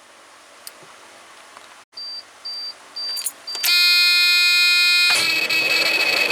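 Freightliner truck cab with the key turned on: the dash chimes four short beeps, then a steady warning buzzer sounds. About five seconds in, the starter engages and the diesel engine turns over, with the buzzer still faintly sounding under it.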